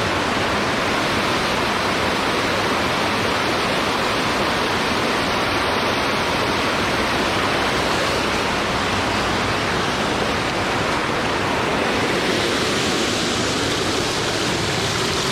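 Steady rush of water from a small stream tumbling over a waterfall, an even unbroken noise.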